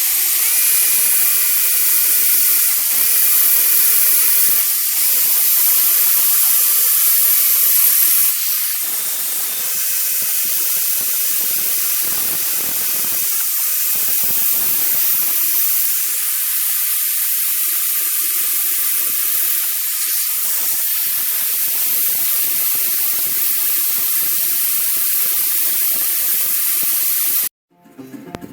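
Power grinder running continuously against a steel chisel bit, a steady hiss of grinding over the motor's whine, easing a little about a third of the way in and cutting off abruptly near the end.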